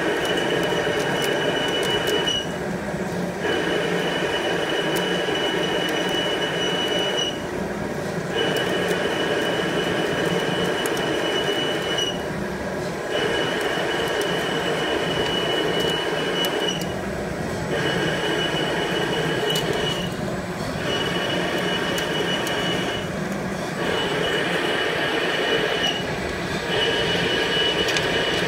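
Automate FL300-II CNC lathe taking roughing passes in aluminum under flood coolant: spindle and cutting noise with a steady high whine. The whine breaks off briefly every few seconds.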